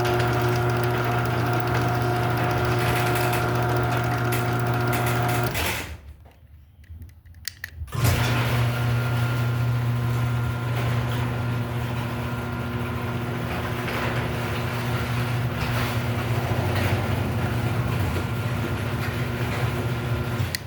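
Craftsman garage door opener running with a steady motor hum. It stops about six seconds in, then starts again with a knock about two seconds later and keeps running.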